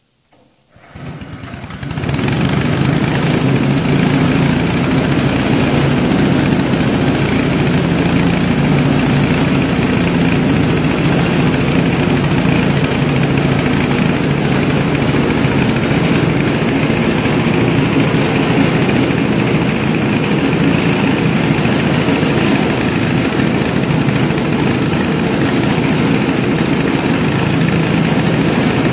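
Small engine driving a multi-crop legume thresher, starting up about a second in and then running steadily at a constant speed.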